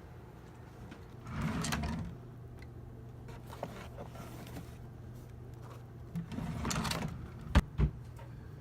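Handling noises from objects being moved: two brief rustling bursts, then two sharp clicks near the end, over a faint steady low hum.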